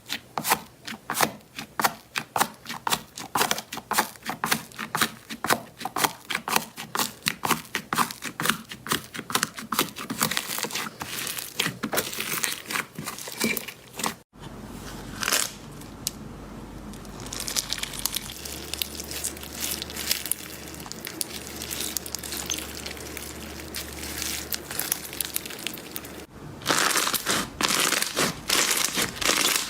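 Slime being squeezed and kneaded by hand, making crackling and popping sounds. For the first half these are separate sharp crackles, several a second. After a cut they become a denser, steadier crackle, and near the end a louder burst of crackling follows another cut.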